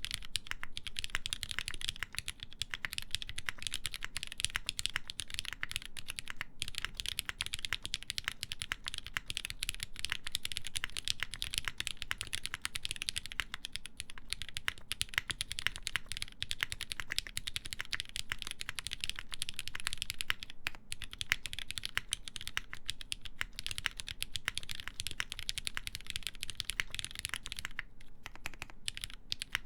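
Continuous fast typing on a mechanical keyboard with lubed linear Cherry MX Black switches in a half-aluminum plate and GMK ABS keycaps: a dense stream of key clacks.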